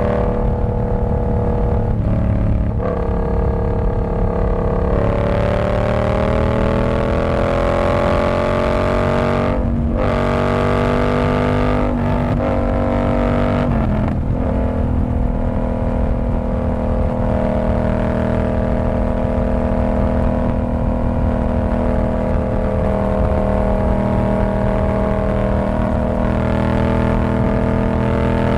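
Yamaha R7's 689 cc parallel-twin engine through a TOCE exhaust with the dB killer removed, loud and revving up through the gears with a brief dip at each upshift, about three in quick succession, then holding a steady cruising note.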